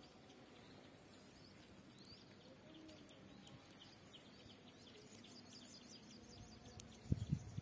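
Faint outdoor ambience with small birds chirping repeatedly. Near the end a burst of loud, low thumping and rumbling sets in.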